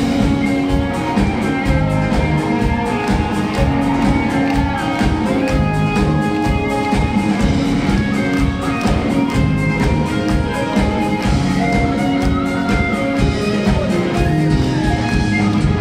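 Live band playing an instrumental break through the hall's PA: electric guitar over a steady drum beat, with no vocals.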